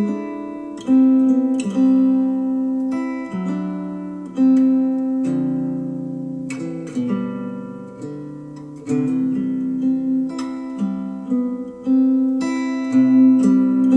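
Music led by strummed acoustic guitar chords, struck every second or two and ringing out, played back through Polk Audio R100 bookshelf speakers on a NAD C 338 amplifier.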